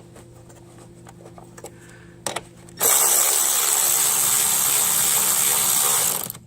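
Small clicks of parts being handled, then a cordless power driver running a bolt in steadily for about three and a half seconds and stopping suddenly.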